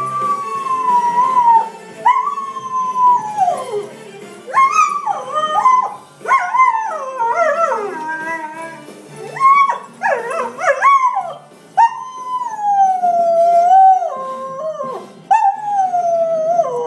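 A dog howling along to TV theme music: long howls that slide down in pitch, with a run of shorter, wavering cries and yips in the middle before the long falling howls return.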